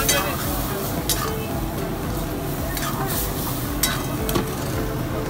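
A long steel ladle stirring chicken in a milky sauce in a hot steel wok, the liquid sizzling steadily, with a few sharp clinks and scrapes of the ladle against the pan.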